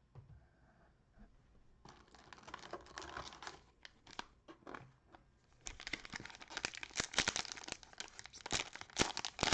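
Cellophane wrapper of a trading card pack being torn open and crinkled, starting about two seconds in and growing busier and louder, with many sharp crackles.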